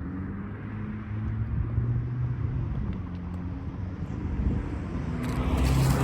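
Road traffic: vehicle engines running with a low hum, then a car coming closer and growing louder near the end, with rising tyre noise.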